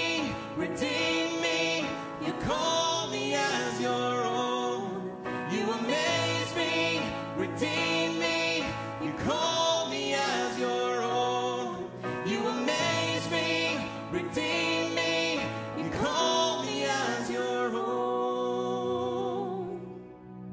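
Worship band playing a song: a sung melody over guitars and keyboard. Near the end the singing stops and the accompaniment carries on more softly.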